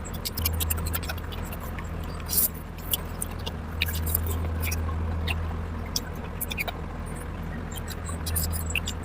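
Close-miked eating sounds: many short, wet clicks and smacks of chewing oily mutton fat curry with rice, over a steady low hum.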